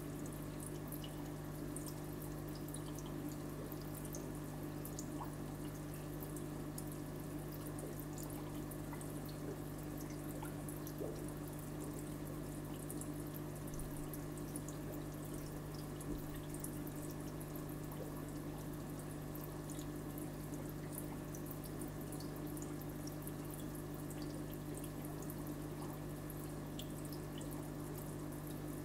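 Aquarium filter running: water trickling into the tank over a steady low hum, with scattered small ticks and drips.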